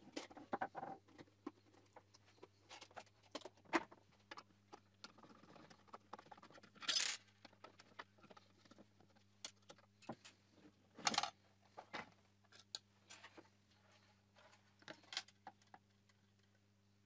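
Irregular clicks, taps and short scrapes of a screwdriver and hands working a plastic car headlight housing and its parts, with the two loudest scrapes about a third and two thirds of the way through. A faint steady low hum underneath.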